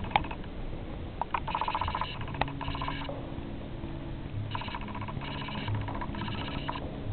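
A ringing electronic tone in short bursts of about half a second, repeating at uneven gaps, with a few sharp clicks in the first seconds.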